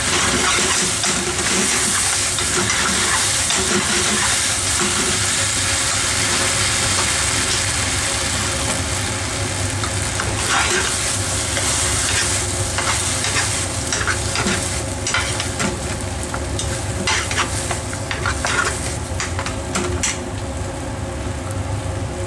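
Vegetables in sauce sizzling in a nonstick frying pan while a wooden spatula stirs and scrapes them. From about ten seconds in, the spatula clacks repeatedly against the pan.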